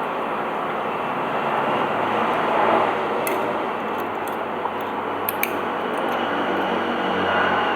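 Steady rushing airflow of a hot air rework station, with a few light clicks of metal tools against a phone's circuit board about three seconds in and again about five and a half seconds in.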